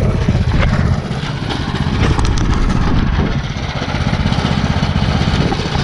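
212 cc Predator single-cylinder four-stroke engine on a Mudskipper longtail mud motor, idling steadily as it warms up.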